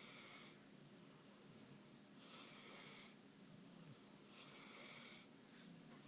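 Pit bull snoring in its sleep: faint, airy, hissing breaths that come about every two seconds, three in all.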